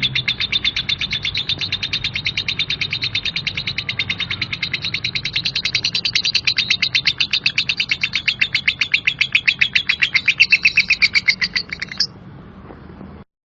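Lovebird's 'ngekek', a long, coarse chattering trill: a fast, even string of sharp chirps, about eight a second, that stops abruptly about twelve seconds in.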